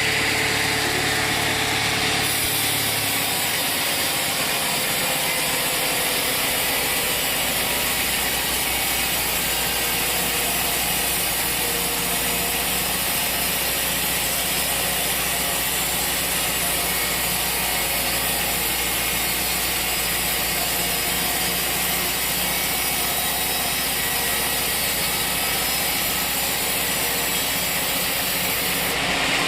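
Sawmill machinery running steadily, a dense mechanical noise that thickens and brightens about two seconds in.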